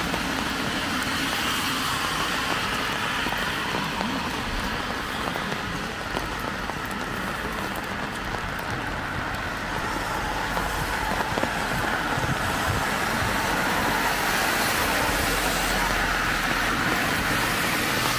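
Steady rain on a city street, with car traffic passing on the wet road.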